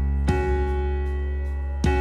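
Stage keyboard playing held chords over a deep bass, with a new chord struck about a third of a second in and another near the end.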